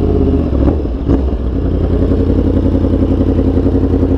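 Yamaha R1's crossplane inline-four running steadily at low revs, with a couple of short knocks about a second in.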